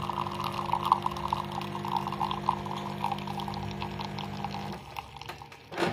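Automatic coffee machine dispensing: its pump hums steadily while liquid pours out, and it stops about five seconds in. A short knock follows near the end.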